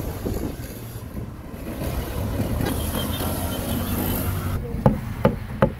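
Steady engine drone of street traffic, then three sharp knocks near the end: a cleaver chopping grilled meat on a cutting board.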